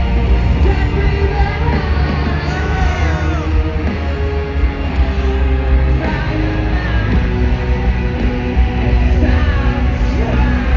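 Live rock concert sound: the band playing loud with heavy, booming bass and a singing voice over it.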